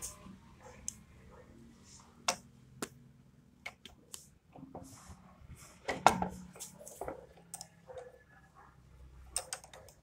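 Scattered clicks and knocks of a wooden plank being handled and set down on a metal drill press table, the loudest knock about six seconds in and a quick run of clicks near the end.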